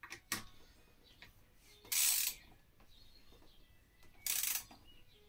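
Ratchet head of a torque wrench clicking in two short rasping bursts about two seconds apart, with a couple of sharp clicks at the start, as the cylinder head bolts of a V-twin engine are tightened down to torque in sequence.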